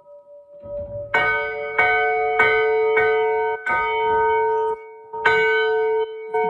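Church bell struck repeatedly: about seven clangs, roughly two-thirds of a second apart, starting about a second in, with a short pause after the fifth. Each ring is cut off abruptly rather than dying away.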